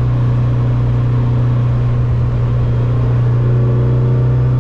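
Simca Rallye 2's four-cylinder engine running steadily at an even pitch while the car drives along, heard from inside the cabin.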